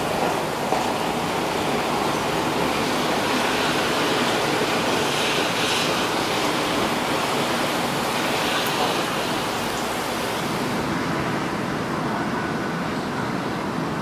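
Strong wind driving heavy rain: a steady rushing hiss that swells briefly about five and nine seconds in, its highest hiss thinning away about eleven seconds in.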